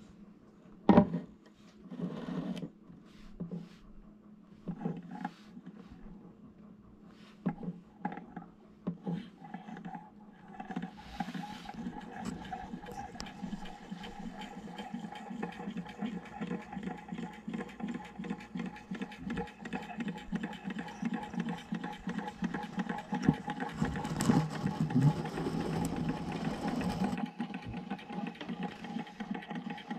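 Small low-temperature Stirling engine running: its flywheel, crank and displacer linkage make a steady, rapid mechanical clatter with a held hum. In the first seconds there are scattered knocks from the metal engine being handled and set down, the loudest about a second in.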